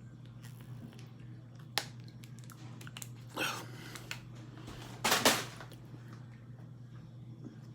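Dry corn starch being bitten and chewed: a sharp click, then two short crunching bursts about three and five seconds in, the second the loudest, over a steady low hum.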